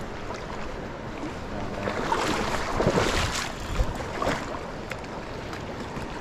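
River water running steadily, with a louder stretch of splashing in the middle, the sound of a hooked salmon being worked into shallow water.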